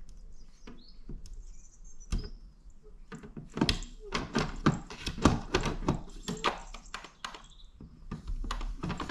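Plastic flap of a SureFlap Connect microchip cat flap rattling and clicking in its frame as a cat hooks the latch with a paw and claws the locked door open. A few scattered clicks come first, then a quick run of taps and rattles in the middle.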